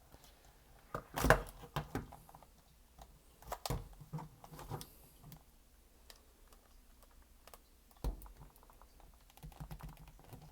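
Plastic clicking and snapping as the two halves of a DualShock 4 controller's shell are pried apart, in scattered clicks with sharper snaps about a second in, near four seconds and at eight seconds.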